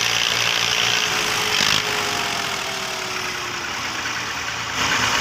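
Massey Ferguson tractor's diesel engine running steadily under load as it hauls a trolley heaped with sugarcane. A faint tone slides slowly down between about one and four seconds in.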